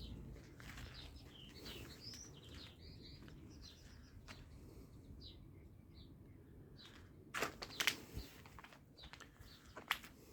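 Birds chirping faintly, many short high chirps, over a low background rumble. A cluster of sharp knocks or clicks comes past the middle, and one more near the end.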